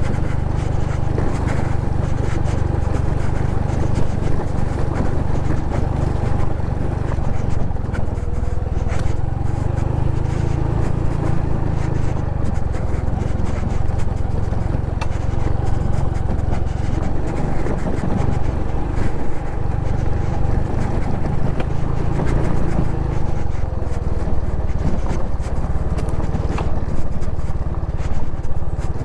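Honda Pop 110i's small single-cylinder engine running steadily as the motorcycle rides a rough dirt trail, under a heavy low rumble, with frequent short knocks and scrapes from the bumpy ground.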